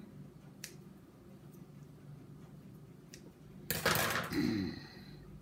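Kitchen work at a pie: a light snip of scissors cutting a strip of pie dough about half a second in, then a short, loud scraping noise about three and a half seconds in as the dough strips are handled over the dish.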